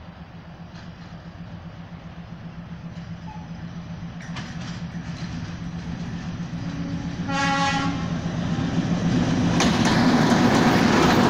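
Diesel locomotives 647-005 and 667-001 approaching at the head of a freight train, their engine drone growing steadily louder. A short horn blast sounds about seven seconds in. Near the end the locomotives pass close, with loud engine and wheel noise.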